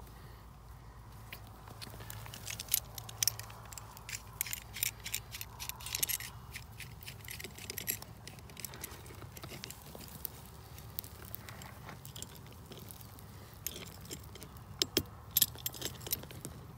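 Pliers clicking and scraping against a metal ground-rod clamp as it is tightened onto a bare copper ground wire: scattered small metallic clinks in two clusters, the first starting a couple of seconds in, the second near the end.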